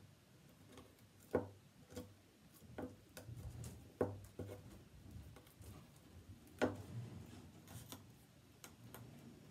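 Scattered light clicks and taps as a scraper presses plastic window screen down into hot glue on a wooden picture frame. The taps come at uneven spacing, the sharpest three a few seconds apart.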